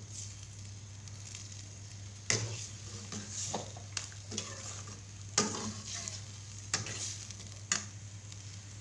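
Metal ladle stirring a pineapple curry in a metal pot, scraping and clinking against the pot several times over a steady low hum.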